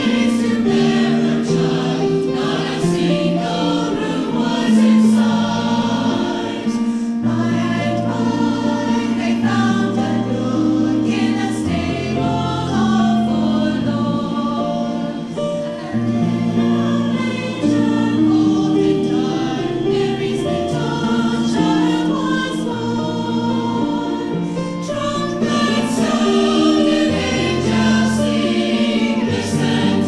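Mixed chamber choir of men's and women's voices singing in harmony, holding chords that change every second or two.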